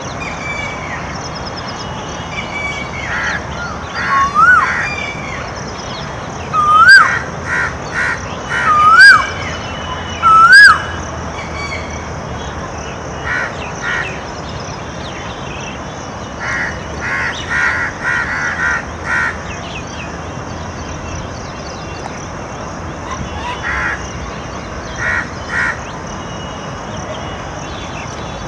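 Asian koel giving four loud rising, whistled calls in the first half, and crows cawing in short quick runs of several caws throughout, over a steady high hiss.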